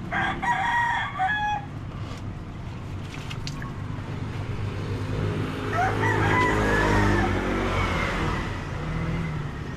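A rooster crowing for about a second and a half, then crowing again a few seconds later while a vehicle passes with a louder engine rumble, over steady roadside traffic noise.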